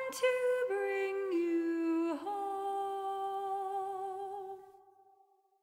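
A single voice singing a few long, held notes without clear words, moving between pitches and ending on a long note that fades away near the end.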